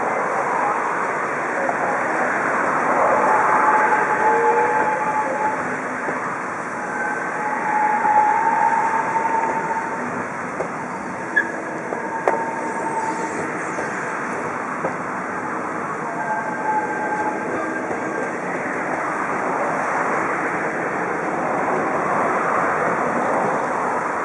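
Red DB regional train with double-deck coaches rolling past close by: a steady rush of wheels on rail, with thin wheel squeals coming and going and a couple of sharp clicks about halfway through.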